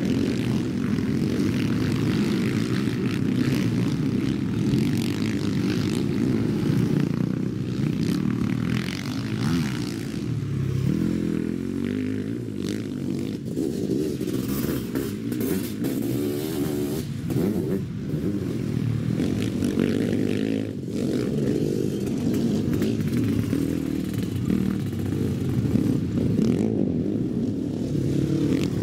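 Several sidecarcross outfits racing on a dirt motocross track, their engines revving up and down continuously.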